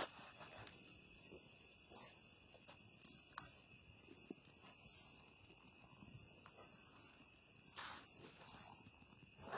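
Steady, shrill chorus of insects (crickets) droning without pause, with the scattered crunch and scuff of boot footsteps on a dirt and gravel trail. The loudest is a single longer scuffing step about eight seconds in.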